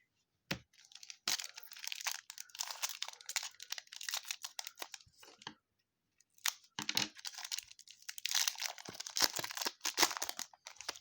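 Crinkling and tearing of a foil trading-card pack wrapper being opened by hand, in two spells with a short pause about halfway through.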